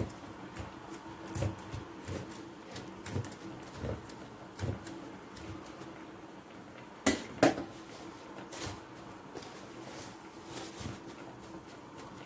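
Faint taps and scrapes of a thin metal skewer pricking salt-covered beef in a plastic container, with two sharper clicks about seven seconds in.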